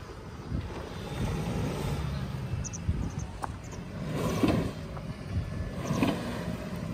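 Mahindra Thar SUV driving through deep mud in two-wheel drive: a steady engine rumble under load, with two louder surges about four and six seconds in as it pushes for grip.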